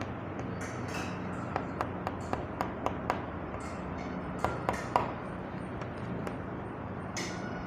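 Small hard plastic toys tapping and clicking against a hard surface: scattered light taps, some with a brief ping. A faint steady hum lies underneath.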